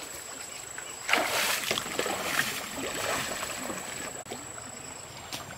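Stream water sloshing and splashing as a person wades through shallow water, loudest from about one second in to about three and a half seconds.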